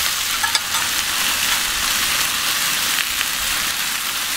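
Dry-aged beef steaks sizzling steadily on a hot grill grate, with a couple of small crackles about half a second in.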